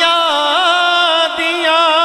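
A man singing a Punjabi naat (devotional praise song), drawing out one long sung note whose pitch wavers and curls in ornaments.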